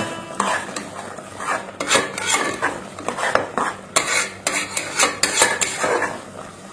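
A spoon stirring spice powders into a frying tomato masala in a cooking pot, scraping and clinking against the pan in irregular strokes.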